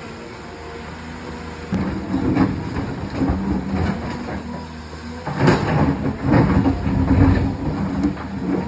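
Excavator engine running steadily, then picking up about two seconds in, with repeated metal clanking and rattling and one sharp heavy knock a little past halfway.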